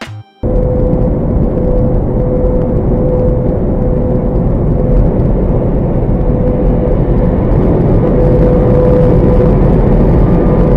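Steady road and engine noise of a vehicle cruising on a highway, recorded from inside by a dashcam, with a constant hum running through it. It cuts in suddenly about half a second in, after a brief snatch of music.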